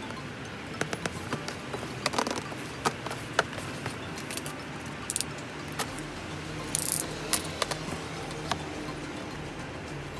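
Hands handling a cardboard box: scattered sharp taps and clicks of fingers and nails on the cardboard, with a short scraping rustle about seven seconds in.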